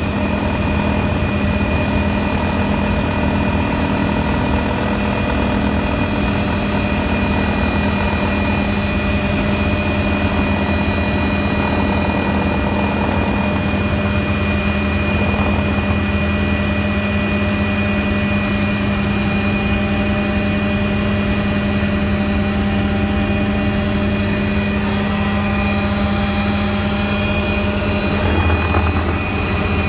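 Tour helicopter's turbine engine and rotor running steadily in flight: a constant drone with a steady high whine.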